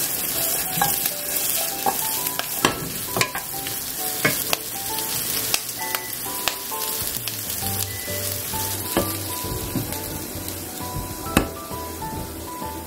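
Potatoes and sausage sizzling in a nonstick frying pan while a wooden spatula stirs and turns them, with scattered knocks of the spatula against the pan.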